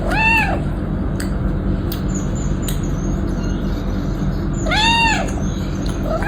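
An animal calls twice, at the start and again about five seconds in, each call a short call that rises and then falls in pitch. A steady low rumble runs under both calls.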